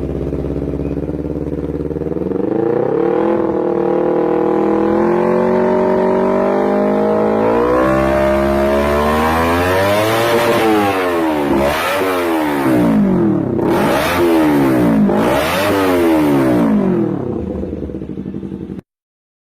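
Engine exhaust running at idle, then revved. The pitch climbs slowly at first, then rises and falls in several quick rev blips, and the sound cuts off suddenly near the end.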